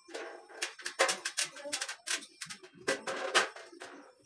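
Light-gauge steel neon-box frame clattering and knocking as it is handled and stood upright, a quick irregular run of metallic knocks with a short ring after each.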